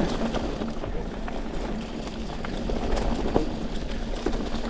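Mountain bike riding along a leaf-covered dirt trail: steady tyre and rolling noise with wind on the microphone, and a few sharp knocks and rattles from the bike over the ground.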